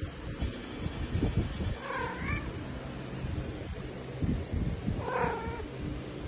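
Domestic cat meowing twice, short calls that rise in pitch, about three seconds apart, over soft low rustling and thumps.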